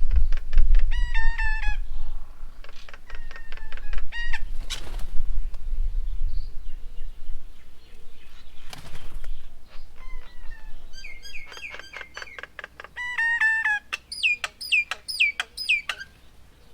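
Birds calling at a garden bird table: quick runs of repeated chattering notes, then near the end a series of loud whistled notes that each sweep down in pitch. A low wind rumble on the microphone fades out about halfway through.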